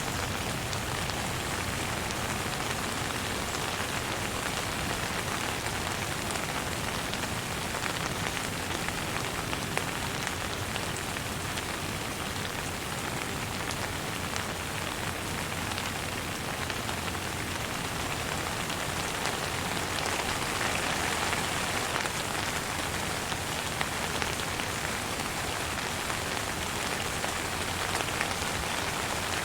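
Gentle rain falling steadily on a surface, with individual drops ticking through the hiss; it swells slightly about twenty seconds in.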